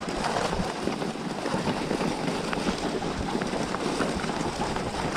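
Skis sliding over packed snow at speed, a steady rushing noise with many small crunches and clicks.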